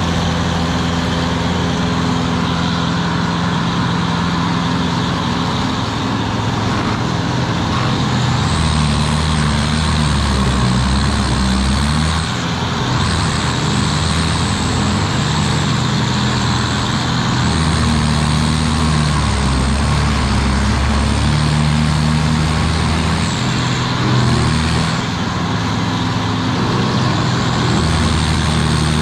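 Carlton SP8018 tracked stump grinder running hard as its cutter wheel grinds into an oak stump. Heavier, lower-pitched stretches of several seconds come and go as the wheel bites into the wood and eases off.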